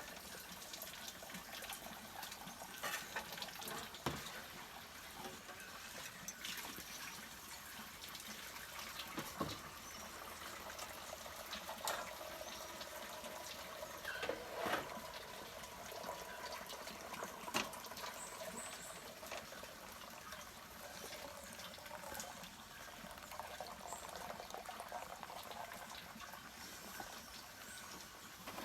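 Water trickling and splashing steadily at a low level, with a few light knocks scattered through it.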